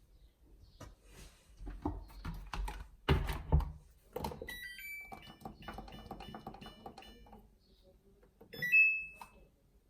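Samsung washing machine being set to run: handling knocks and two loud thumps, then a rising two-note chime from the control panel, a quick run of about eight short beeps as the programme dial or buttons are stepped through, and a louder two-note beep near the end.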